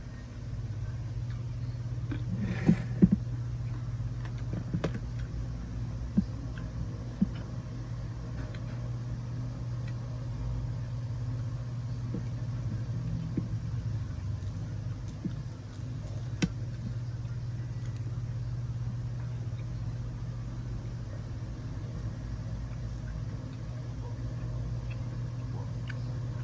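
A steady low hum, with a few scattered short clicks, the loudest about three seconds in.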